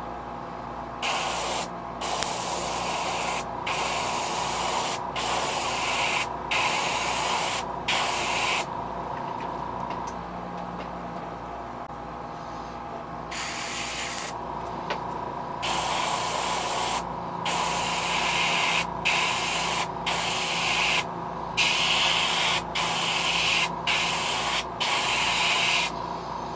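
Airbrush spraying paint onto a fishing lure: repeated hissing runs of one to two seconds each, separated by short breaks, with a longer pause of about four seconds midway.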